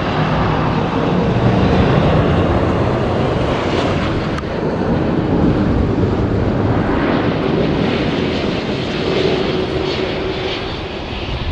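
Jet airliner passing low overhead, its engine roar loud throughout and easing off near the end.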